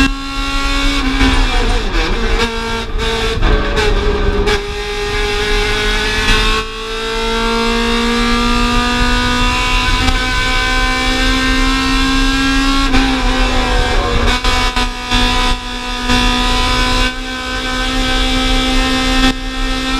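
Honda B16A four-cylinder engine of a stripped EG Civic hatch, heard from inside the bare cabin at race pace. It is held at high revs, falls off and wavers for a few seconds as the driver lifts and shifts down for a corner, breaks briefly at a gearshift, then winds steadily back up to high revs.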